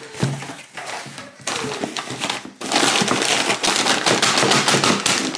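Cardboard parcel and its packing being opened by hand: a dense run of sharp crackles and rustles, louder from about a second and a half in.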